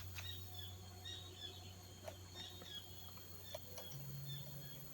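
Small birds giving faint, short, high chirps, about two or three a second, over a low steady hum that shifts up in pitch near the end.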